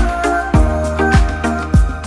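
Background music with a steady beat: a deep, falling kick drum about every 0.6 seconds under sustained chords.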